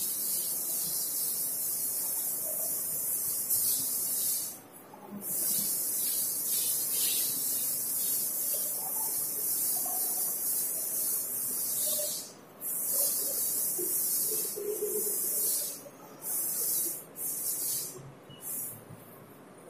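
Cloth duster wiping chalk off a blackboard: a high, scratchy hiss in long strokes, broken a few times by short pauses that come closer together near the end.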